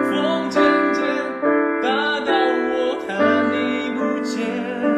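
A young man singing a slow ballad softly while accompanying himself on piano, with chords struck roughly once a second under the sung melody.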